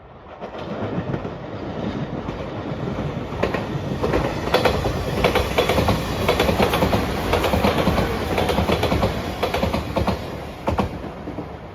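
A five-car Shiokaze limited express electric train passing close by. Its rumble builds over the first few seconds, wheels clack over the rail joints through the middle, and it drops away near the end.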